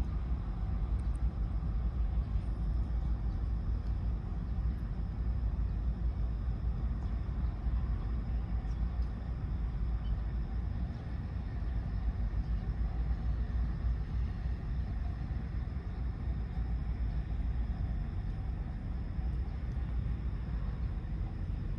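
Steady low rumble, even throughout, with no whistle blast standing out.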